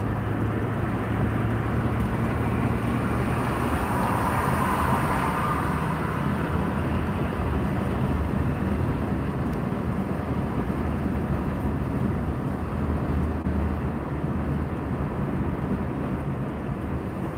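A car driving at road speed, heard from inside the cabin: steady engine hum and tyre and road noise, with a brief swell of noise about four seconds in.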